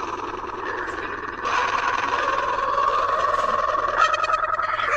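A drawn-out comic sneeze made of many stacked copies of a voice's "ah" build-up, forming one dense, unbroken vocal drone. It grows thicker about one and a half seconds in and again about four seconds in.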